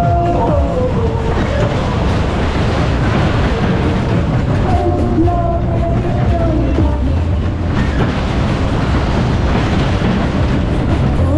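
Superbob fairground ride cars running at speed round the track: a loud, steady rumble of wheels rolling on the rails.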